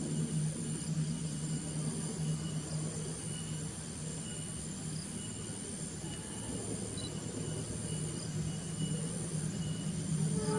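Steady low hum of a CC 206 diesel locomotive's engine, with insects chirping in a high, steady drone over it; the hum grows louder toward the end.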